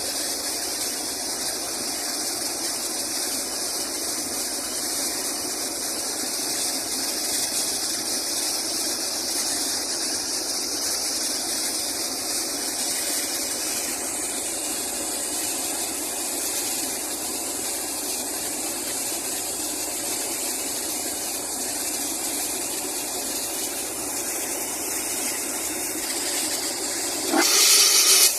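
Borewell being flushed with compressed air from a compressor: a steady rush of air and spraying water. The sound grows louder for about a second near the end.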